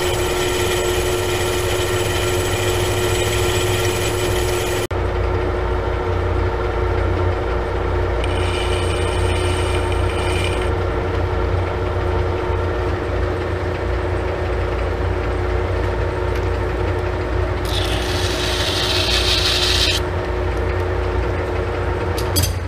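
Monarch lathe running with a steady hum and whine while a parting tool cuts dry into a spinning metal sleeve. The high hiss drops away abruptly about five seconds in, and harsher cutting noise rises twice, once around the middle and again near the end.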